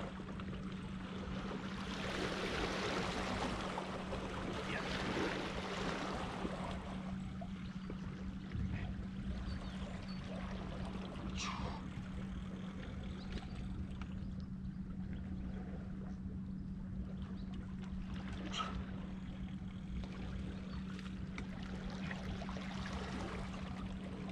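Small waves lapping and trickling against shoreline rocks under a steady low hum, louder for a few seconds near the start, with a couple of brief clicks later on.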